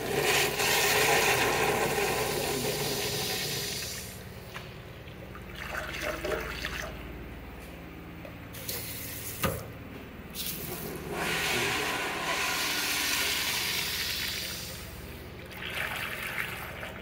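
American Standard Allbrook urinal flushing from its flush valve, water rushing through the bowl and easing off after about four seconds. A sharp click comes about nine and a half seconds in, and a second flush rushes through soon after.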